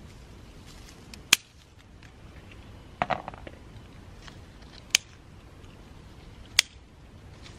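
Scissors snipping through the stems of small citrus fruit on a tree: three sharp snips, with a short rustling clatter among the branches about three seconds in.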